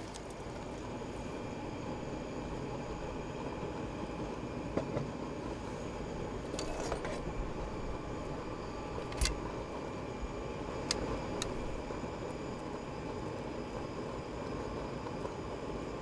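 Jetboil camp stove burning steadily under a pan of kebabs, a constant hiss, with a handful of sharp metal clinks of tongs against the pan between about five and twelve seconds in.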